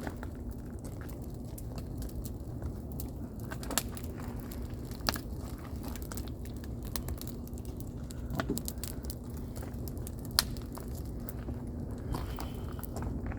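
Wood campfire crackling, with scattered small snaps and sharper pops about four, five and ten seconds in, over a steady low hum.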